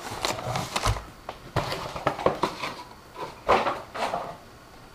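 Plastic anti-static bag crinkling and crackling as a packaged motherboard is handled and set down, with light knocks from the cardboard box. The loudest crackle comes about three and a half seconds in, and it goes quiet near the end.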